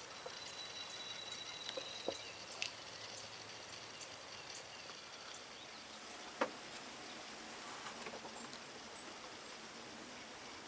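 Quiet woodland ambience with small birds calling faintly, including a thin whistled note in the first two seconds and a short high chirp near the end. A few sharp knocks or clicks stand out, the loudest about six seconds in.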